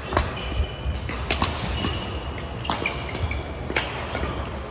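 Badminton doubles rally: sharp racket strikes on the shuttlecock, a few in each second, with short high squeaks of court shoes on the wooden floor, echoing in a large sports hall.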